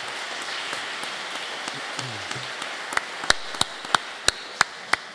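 Audience applauding, the clapping fading away in the second half. From about three seconds in, single louder claps close to the microphone stand out at about three a second.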